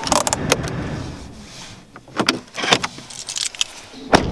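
Keys jangling and a car door being opened, with a series of clicks and one sharp latch click near the end.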